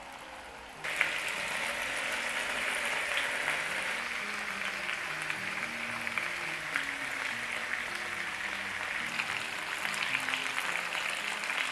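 Sliced raw potatoes sizzling in hot oil in a frying pan, a steady hiss with small crackles that starts suddenly about a second in.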